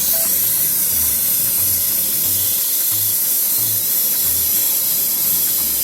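Clockwork spring motor of a small wind-up toy, Remy the chef rat, whirring steadily as it unwinds and moves his spoon. It starts suddenly and runs evenly, over background music with a soft steady beat.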